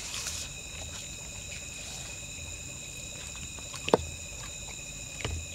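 Night insects chirring steadily in several constant high tones, under quiet eating sounds. A sharp click comes about four seconds in, and a softer one just before the end.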